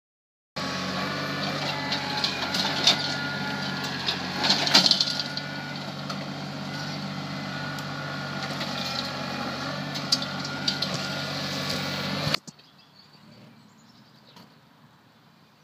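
New Holland TC330 compact tractor's diesel engine running steadily under load while dragging a heavy log on chains, with scattered knocks and wood cracks, the loudest about five seconds in. The sound stops abruptly about twelve seconds in, leaving only faint clicks.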